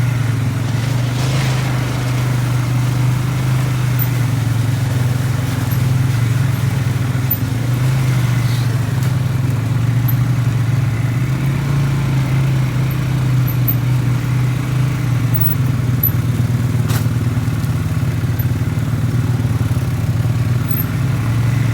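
Small vehicle engine running at a steady speed without letting up, the drone of a machine being driven along a trail.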